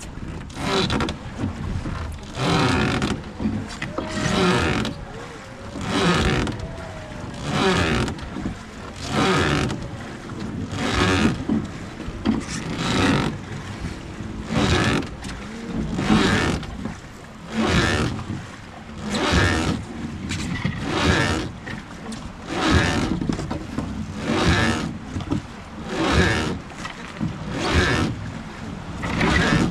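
Oars of a wooden Hozugawa river boat being rowed, splashing through the water in a steady rhythm of about one stroke every 1.7 seconds as the boat gets under way.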